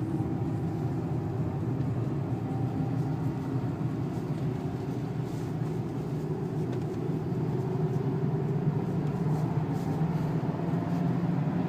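A Renault's 2.0-litre turbo diesel engine running steadily at low speed, heard from inside the cabin, over a steady wash of tyre and road noise from the wet track. The engine note rises slightly in the later part.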